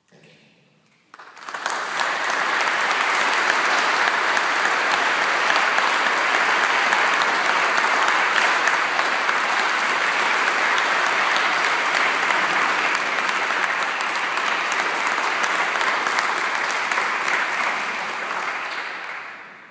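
Audience applauding: the applause breaks out about a second in, holds steady, and dies away near the end.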